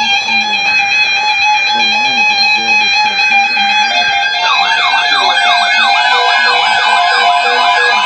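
Several NOAA weather radios sounding their alert alarms together for an incoming severe thunderstorm watch: a loud chord of steady, piercing tones. About four seconds in, a fast siren-like warble joins in, repeating a few times a second.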